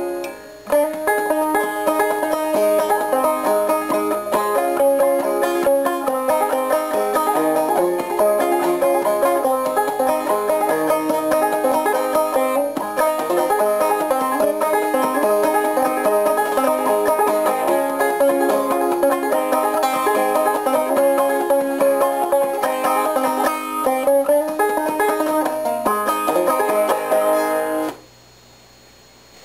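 Banjo-led instrumental music with quick plucked notes over a steady beat; it stops about a second and a half before the end.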